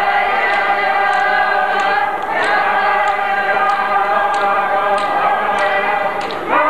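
Iñupiaq drum song: a group of voices chanting in long held notes over frame drums beaten at an even pace, roughly one and a half beats a second. Near the end the voices slide upward into a new phrase.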